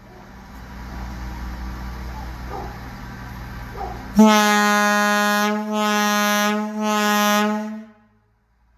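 Old firehouse air horn, well over 60 years old, sounding as a fire alarm: a low rumbling rush builds, then the horn blows a loud, steady, low tone for about four seconds, wavering twice, and cuts off abruptly.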